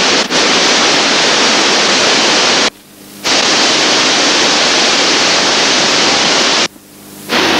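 Loud, steady rush of water from the Krimml Falls, a large mountain waterfall, as recorded on Super 8 sound film. The sound drops out briefly twice, about three seconds in and again near the end.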